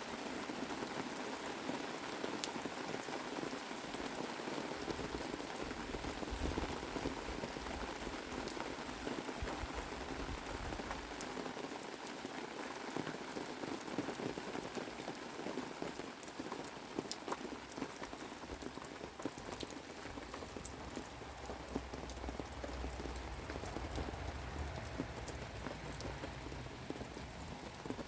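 Steady summer-storm rain falling, with single drops ticking close by.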